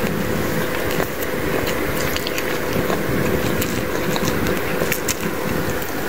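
A steady droning hum with one constant mid-pitched tone, and scattered small clicks and crackles over it.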